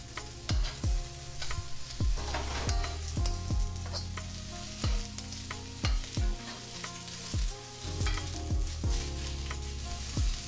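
Sliced bell peppers and onions sizzling in hot sesame oil in a wok as a metal spoon stirs and scrapes them, with repeated, irregular knocks of the spoon against the wok.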